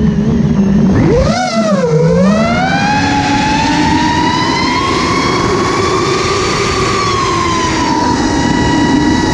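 Brushless motors and propellers of an iFlight Nazgul FPV quadcopter on a 6S battery, heard from its onboard GoPro: a loud, pitched whine. About a second in it dips sharply and climbs back as the throttle is cut and opened again, then holds high, rising gently and easing off near the end.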